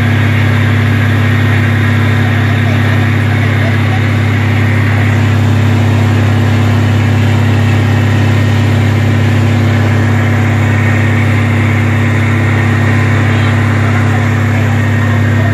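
An engine running steadily at one constant speed, a loud low drone that does not change.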